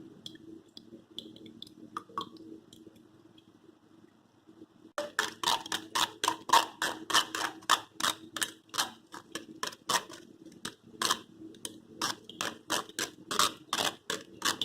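A spoon scraping and pressing blended grape pulp through a mesh strainer, faint at first and then from about five seconds in a quick run of scraping clicks, about two or three a second.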